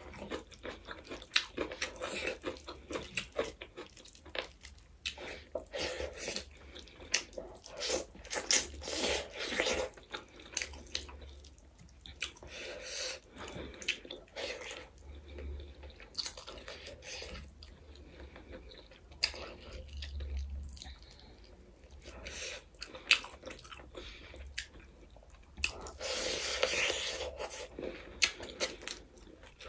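Close-miked chewing and mouth sounds of a person eating rice, fried chicken and greens by hand: wet chewing with irregular sharp smacks and clicks.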